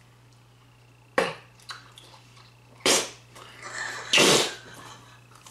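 Bubblegum chewing and bubble blowing: a sharp pop about a second in, a louder short burst around three seconds in, and a longer breathy burst near the end as one of the chewers laughs.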